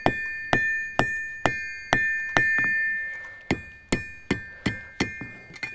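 Blacksmith's hammer striking hot iron on an anvil, about two blows a second with a short pause about three seconds in, each blow leaving the anvil's high, steady ring.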